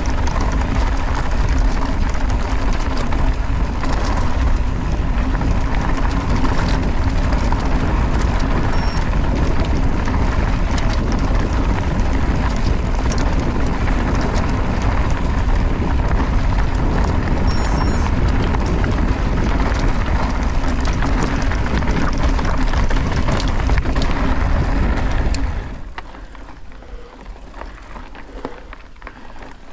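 Wind buffeting the action camera's microphone, with tyre rumble from a mountain bike riding fast on a dirt trail: a loud, steady rushing noise. About 26 seconds in it drops suddenly to a much quieter noise, as the bike slows.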